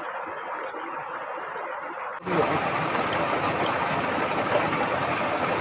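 Steady rushing water of a nearby stream, with no pitched sound in it. It is fainter at first and jumps abruptly to a louder, even rush about two seconds in.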